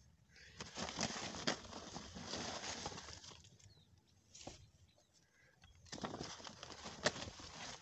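Dry coconut fibre (coir) rustling as hands press and spread it by the handful, in two spells with a lull between and a couple of sharp ticks.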